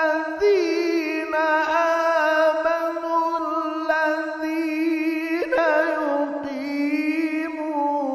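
A male Quran reciter drawing out one long unbroken melodic line in Quranic recitation, the voice sliding and ornamenting in pitch, with a leap upward about five seconds in.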